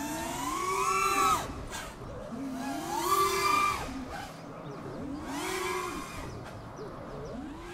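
FPV racing quad's brushless motors (iFlight Xing-E with Ethix P3 props) whining in three rising-and-falling swells about two seconds apart, with a fourth starting near the end. Each swell is a throttle blip followed by the throttle cut to zero for an inverted yaw spin.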